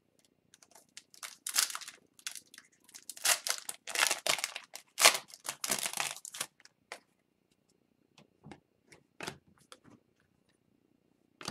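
Foil wrapper of a trading card pack being torn open and crinkled, a run of crackling rips over several seconds. Then a few light clicks and rustles as the cards inside are handled.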